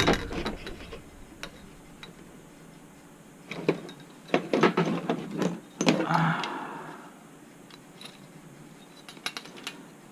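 Handling noise from working an RC helicopter's torque tube out of its tail boom: scattered clicks and knocks, busiest in the middle, with a short scraping rush about six seconds in.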